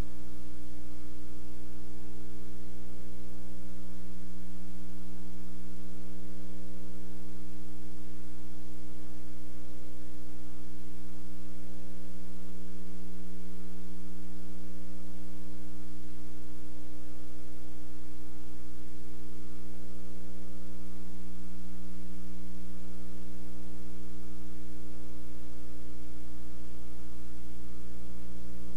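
Steady electrical mains hum: a low drone of several even tones over a soft hiss, unchanging, as on a blank stretch of video tape with no programme sound.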